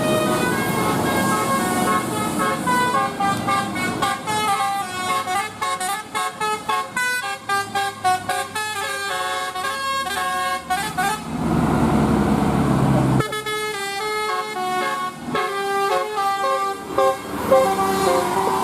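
Bus 'telolet' multi-tone horn playing a melody of stepped notes, with quick short toots in the middle. About twelve seconds in, a loud low rush of noise lasts for a second or two before the horn tune resumes.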